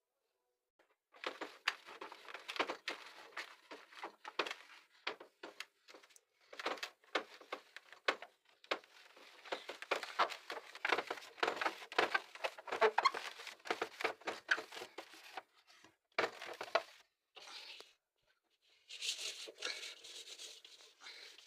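Fridge being cleaned by hand: a fast, irregular run of clicks, knocks, scrapes and crinkles from shelves, containers and wrappers being handled and wiped, with a short pause and then a few seconds of steadier swishing near the end.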